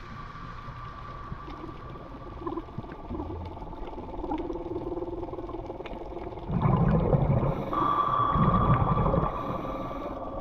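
Underwater sound picked up by a diver's camera: a scuba diver's regulator exhaling, two loud bursts of bubbles about two thirds of the way through, over a steady low rumble and a thin high-pitched whine.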